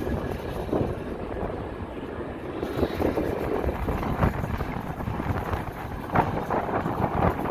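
Passenger train coaches running around a sharp curve: a steady rumble of wheels on the rails with irregular knocks and clatter, and wind buffeting the microphone.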